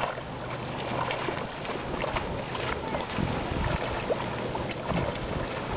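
River water lapping and splashing, with wind rumbling on the microphone that grows gustier about three seconds in.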